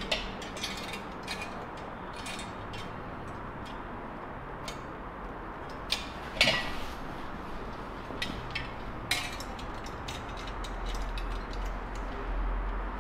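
Metal scale armor and its fittings clinking and clicking irregularly as the pieces are handled and fastened on a wearer, the loudest clink about six and a half seconds in, over a steady background hiss.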